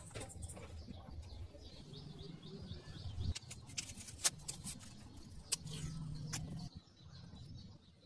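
Faint bird chirping, with a cluster of sharp crinkles and clicks as a small paper sachet is torn open.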